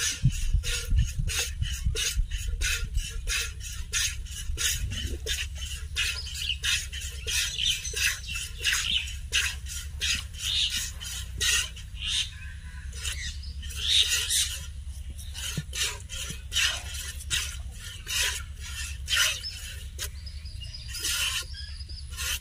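A cow being milked by hand: milk squirting in quick sharp streams, about two to three squirts a second in a steady rhythm, over a low steady rumble.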